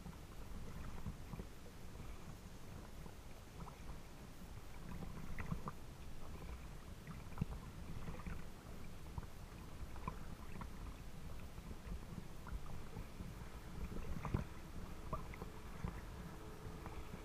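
Water lapping against a small craft moving slowly on a lake, with scattered light splashes over a steady low rumble.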